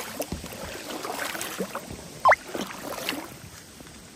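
Paddle strokes and water sloshing around a stand-up paddleboard, with one short, sharply rising squeak about two seconds in that is the loudest sound.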